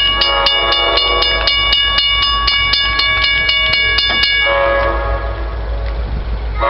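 EMD GP40 diesel locomotive approaching, its air horn sounding a long, steady chord over the rumble of the train. A regular ticking runs under the horn at about four a second. About four seconds in, the high horn tones stop and a lower set of tones carries on.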